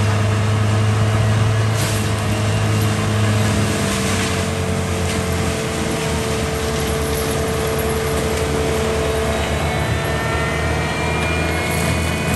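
Caterpillar 299D compact track loader with a forestry mulcher attachment running: a steady diesel engine drone that drops in pitch about four seconds in, with a thin high whine rising over the last few seconds.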